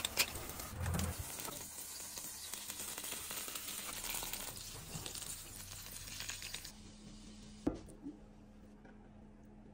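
Steady sizzling of a tomato, pepper and bean sauce in a frying pan, with a few small clicks of utensils. The sizzle stops about seven seconds in, and a single sharp knock follows.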